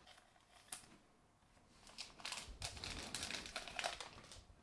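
Faint crinkling of a foil trading-card pack wrapper and rustling of cards being handled. It comes as a run of small crackles from about two seconds in, after a single click near the start.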